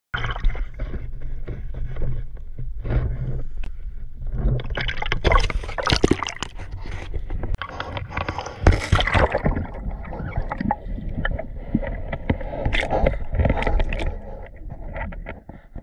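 Water sloshing, gurgling and splashing around a freediver's camera at the surface, with many sharp knocks and clatters. It turns quieter near the end, when the camera is under water.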